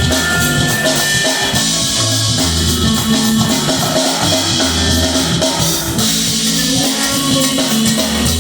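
Live band playing loud instrumental rock-style music on stage, with a full drum kit and cymbals, long held bass notes and guitar.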